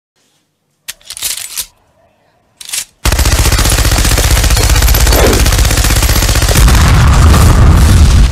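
Automatic gunfire: after two short bursts, continuous rapid fire starts about three seconds in and keeps up loudly, getting louder near the end.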